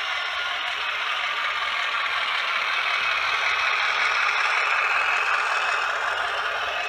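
OO gauge model freight train, hauled by a DCC sound-fitted diesel locomotive, running past with its wagons' wheels rattling and clattering on the track. It grows louder toward the middle and eases off near the end.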